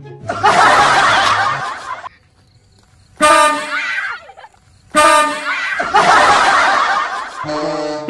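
Bus 'telolet' air-horn blasts: a short one about three seconds in, then a longer one from about five seconds until shortly before the end. A burst of laughter comes before them.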